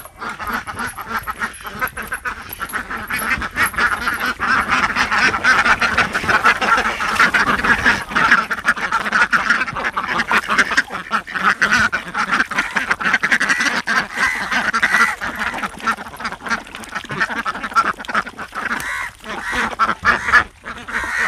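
A flock of domestic ducks quacking nonstop as they crowd in to feed on fish heads and guts.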